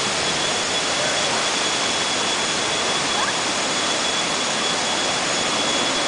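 Steady rushing of white water cascading down a rock-slab waterfall, an unbroken even roar.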